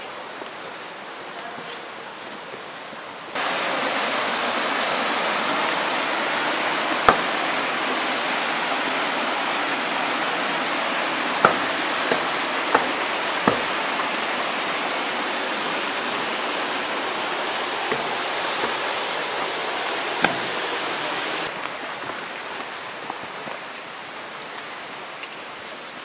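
Steady rush of water from the río Ebrón, starting abruptly about three seconds in and cutting off abruptly a few seconds before the end, with a few sharp clicks through it. A much quieter outdoor hiss lies on either side.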